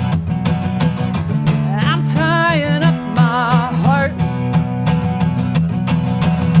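A woman sings a country-style song with wavering, held notes over a strummed acoustic guitar keeping a steady beat.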